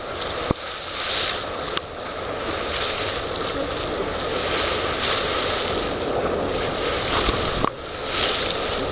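Steady rush of wind and water noise aboard a moving boat, swelling and easing every second or so, with a few sharp clicks.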